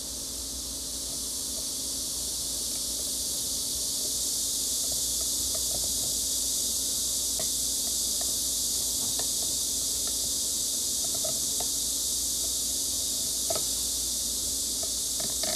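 A steady high hiss throughout, rising a little in level over the first few seconds, with scattered faint ticks. A few sharper clicks come near the end, from metal tweezers setting a piece of bark in place on the substrate.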